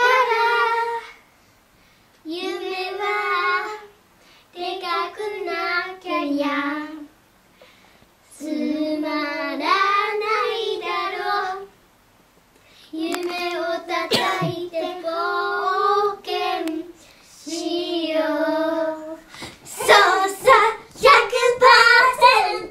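Two children, a girl and a boy, singing a Japanese pop song together without accompaniment, in short phrases with brief pauses between them. Near the end the singing gets louder and more lively.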